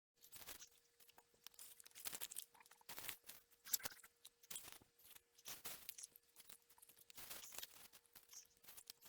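Irregular rustling and crunching of straw mulch and soil as hands dig through a mulched bed pulling out potatoes.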